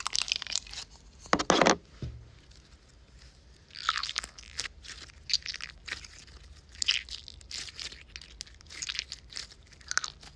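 Snow-textured slime being taken from its container and squeezed and poked by hand: a louder burst about a second and a half in, then repeated bursts of crackly clicks every second or two.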